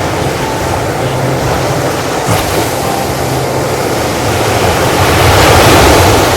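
Ocean waves washing on a shore, a steady surf rush with one wave swelling to its loudest about five seconds in and then easing off.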